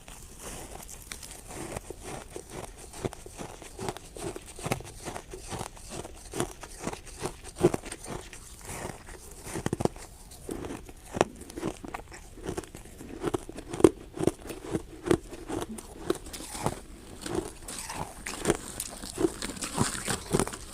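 Ice being bitten and chewed close to the microphone: a long run of sharp crunches and crackles, coming about two to three a second in the second half.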